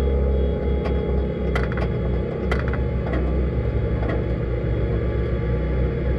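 Deep, steady rumble of an off-road desert racing buggy heard from inside the car, with a handful of sharp knocks and rattles in the first four seconds or so.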